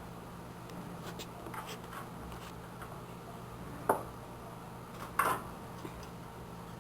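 Computer parts being handled during disassembly of a desktop system unit: a few light clicks, then two sharp knocks of hard parts, the louder about four seconds in and a doubled one just after five seconds, over a steady low hum.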